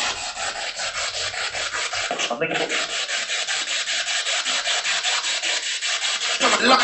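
SB7 spirit box sweeping through radio stations: choppy static, about eight chops a second, with brief snatches of radio breaking through about two seconds in and near the end.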